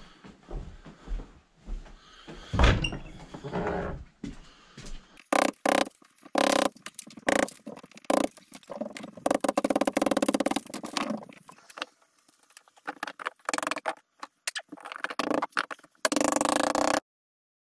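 A run of repair-work noise: scattered knocks, then many short, loud, stuttering bursts of tool noise with a stretch of fast rattling in the middle. It ends with a cordless power drill running for about a second before the sound cuts off abruptly.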